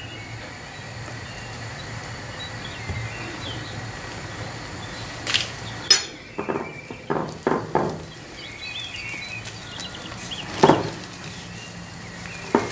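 A few sharp clinks and knocks of a spoon and spatula against a glass mixing bowl, clustered around the middle with one more near the end, over a low steady room hum.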